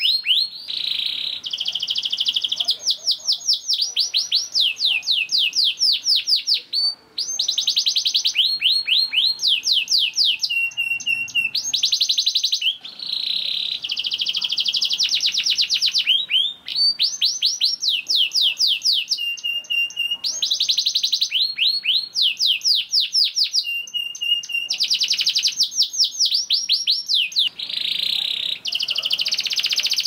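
Domestic canary singing a long, near-continuous song of fast rolling trills, each phrase a quick run of repeated sweeping notes, switching to a new phrase every second or two with a few short held whistles between. The song breaks off only briefly about seven seconds in.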